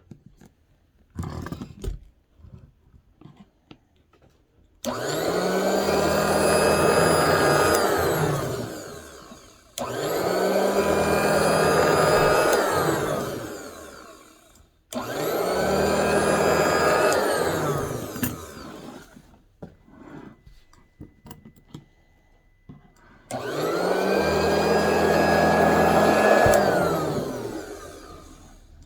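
Electric cutting machine's motor switched on and off four times: each run spins up quickly to a steady whining hum, holds for a few seconds, then winds down with falling pitch. Light clicks and knocks come in the gaps between runs, the longest gap coming before the last run.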